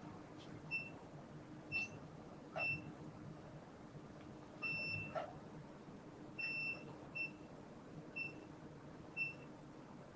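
Electronic beeps from operating-room equipment, short high tones about once a second, two of them held a little longer. Two faint clicks also sound.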